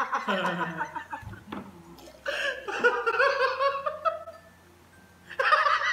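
A man laughing hard in fits: a burst of laughter at the start, a longer run from about two to four seconds in, a short lull, then more laughter near the end.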